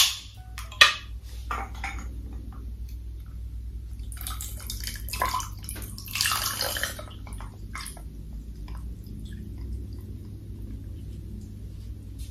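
Canned orange drink poured into a glass mug, the liquid splashing into the glass, loudest in two stretches about four and six seconds in. A sharp click comes about a second in.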